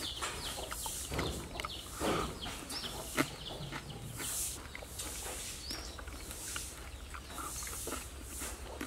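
Birds chirping repeatedly, with scattered soft clicks and mouth noises from a person chewing raw grubs.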